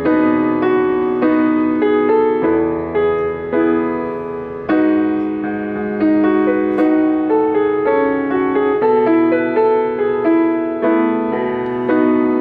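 Steinway grand piano played solo: a steady stream of notes in the middle register over held bass notes.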